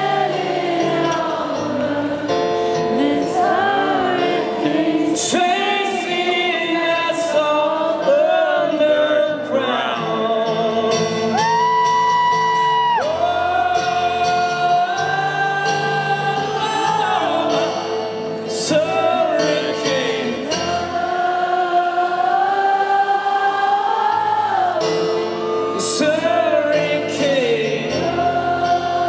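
Live rock band music with long, held, wordless sung notes that glide between pitches over sustained chords, sounding choir-like.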